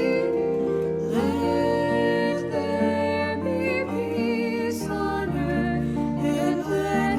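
Gentle, slow instrumental music with sustained chords and a melody that changes pitch about once a second, possibly with a soft voice.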